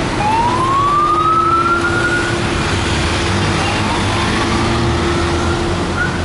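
Emergency vehicle siren wailing in slow rising sweeps about three seconds apart, over steady street traffic noise.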